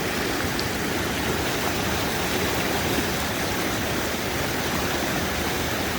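A stream in full spate, its water raging and rushing in a steady, unbroken rush.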